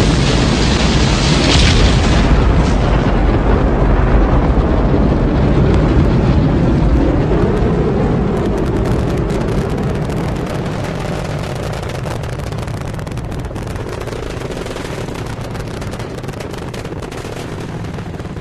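Rocket engines at launch: a loud, continuous rumble with sharp crackling running through it, slowly fading.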